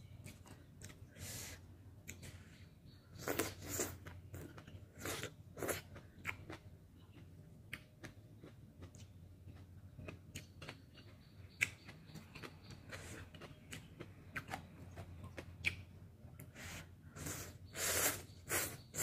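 Ramen noodles slurped and chewed close to the microphone: several noisy slurps, the loudest a few seconds in and again near the end, with wet chewing and small mouth clicks between them.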